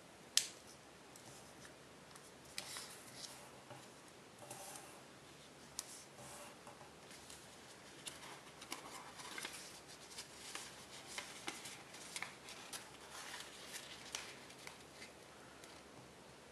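Foil-backed tissue origami paper crinkling and crackling as fingers fold and press creases into it, with many short, scattered clicks and rustles. The loudest sound is a single sharp click about half a second in.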